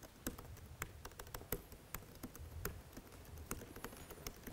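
Typing on a laptop keyboard: irregular keystroke clicks, a few a second.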